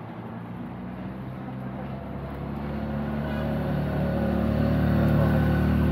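Race convoy cars driving up the road behind the riders, engine noise growing steadily louder as they approach.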